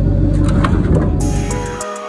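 A vehicle engine idling in a low steady hum, with a few light knocks on top. Electronic music with a quick ticking beat comes in a little past halfway, and the engine sound cuts off near the end.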